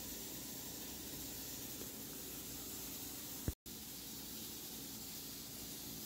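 Steady, even hiss with a faint low hum, broken about three and a half seconds in by a sharp click and a moment of total silence where the recording is cut.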